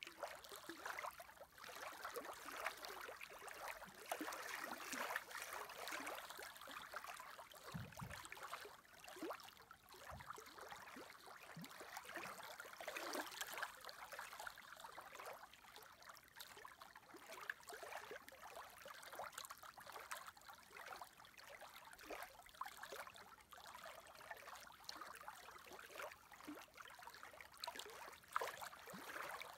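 Small lake waves lapping and splashing, a faint, irregular patter of water, with a couple of soft low thumps about eight and ten seconds in.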